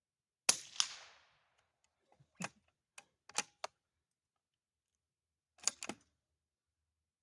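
Suppressed Savage Rascal Target .22 LR single-shot rifle fired once with supersonic ammunition: a sharp crack about half a second in, followed about a third of a second later by a second crack with a decaying ring, the bullet striking a steel target. Then a run of light metallic clicks as the bolt is worked and a fresh round is loaded.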